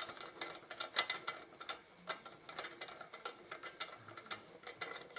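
Socket ratchet clicking in short, irregular runs as an exhaust nut is wound onto its stud.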